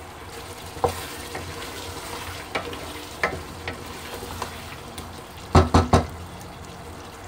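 Potatoes in a tomato masala sizzling gently in a steel pot while a wooden spoon stirs them, scraping and knocking against the pot a few times, with three louder knocks near the end.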